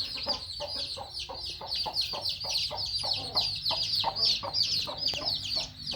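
Chickens clucking, with a rapid, unbroken run of high, downward-sweeping peeps, several a second.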